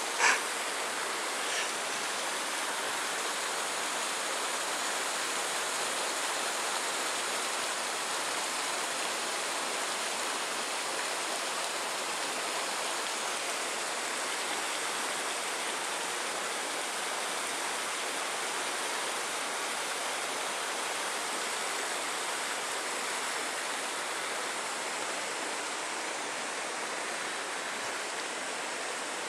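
Steady rush of running water, even and unchanging throughout, with a faint tick about a second in.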